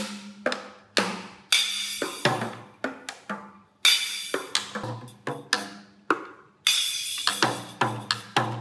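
Toy drum kit struck unevenly with drumsticks by a young monkey: irregular hits on the small drums mixed with tinny cymbal crashes that ring on, the longest near the end.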